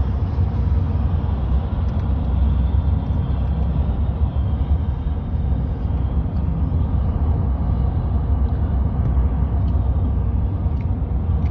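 Steady low rumble of road and engine noise from a vehicle driving on the highway, heard from inside the cabin.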